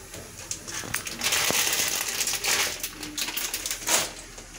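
Rustling and scraping noises in three or four short bursts, with a few light clicks in between.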